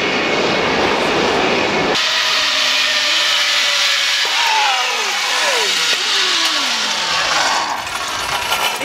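Zip line trolley running along its steel cable: a rushing noise that cuts off suddenly about two seconds in, then a steady hiss with whining tones that slide down in pitch over a few seconds.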